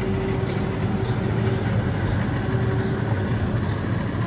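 Tram running on its track: a steady rumble of motors and wheels with faint ticks about twice a second.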